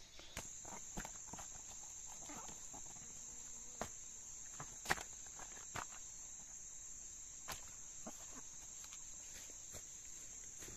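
Insects chirring steadily at a high pitch, with scattered sharp clicks and knocks through it, the loudest about five seconds in.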